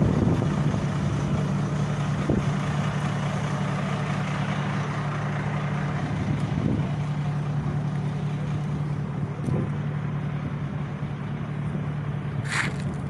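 Fire engine idling steadily, a low even hum, with a few faint knocks and a brief high squeak near the end.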